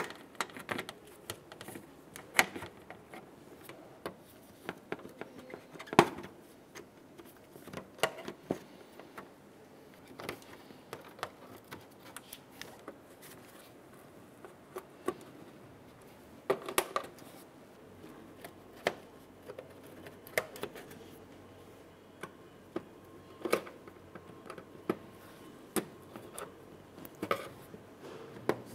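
Plastic push clips on a plastic top cover being pried up with a metal panel clip tool: irregular clicks and taps, some much sharper than others.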